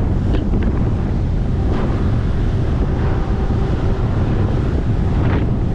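Wind buffeting the microphone of a fishing boat under way on open sea, a steady low rush with the faint drone of the boat's motor underneath.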